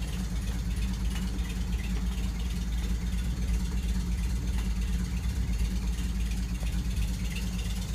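Austin-Healey 3000 BT7's straight-six engine idling steadily and very slowly, at about 400 rpm, soon after its first start in years. An idle this low is taken by the mechanic as a sign of a healthy engine with its carburetion and timing right.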